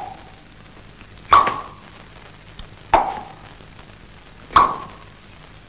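Four sharp knocks, evenly spaced about a second and a half apart: a slow footstep sound effect for a walking figure.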